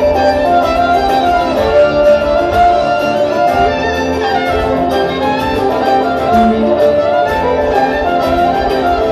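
Live folk string band playing an instrumental passage, fiddles leading over banjo, acoustic guitar and upright bass, with a steady beat.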